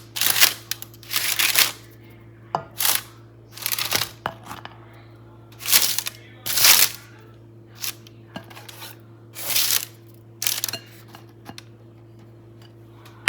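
Irregular short bursts of household handling noise, rustling and scraping, about a dozen over the span, over a steady low electrical hum.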